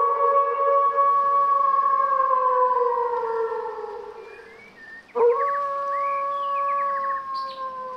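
A wolf howling: two long, drawn-out howls. The first holds its pitch, then slowly falls and fades away. The second begins about five seconds in with a quick upward slide, then holds steady, with a few short higher calls over it.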